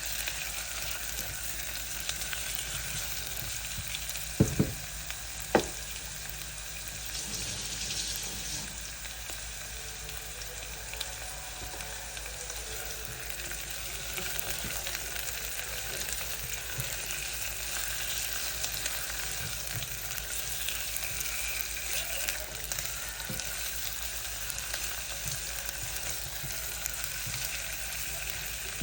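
Large shrimp frying in hot coconut oil with sautéed onions, a steady sizzle. A few sharp knocks stand out about four and a half and five and a half seconds in.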